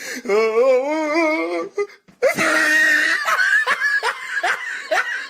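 A drawn-out, wavering vocal sound lasting about a second and a half. After a brief break, a person laughs in rapid, repeated bursts.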